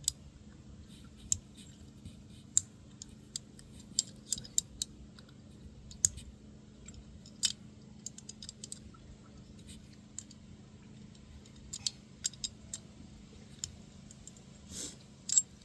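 Irregular sharp clicks and light metallic taps of small tools and parts being handled while parts are threaded into a mini bike's carburetor, over a steady low hum.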